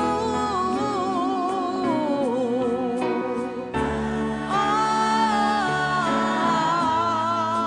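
A woman singing a slow ballad with accompaniment: a sung run sliding downward with vibrato, then a new chord about four seconds in and a long held note with vibrato.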